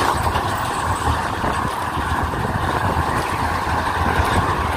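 Steady rush of wind on a bicycle-mounted phone's microphone with road noise while riding, the low end rumbling unevenly.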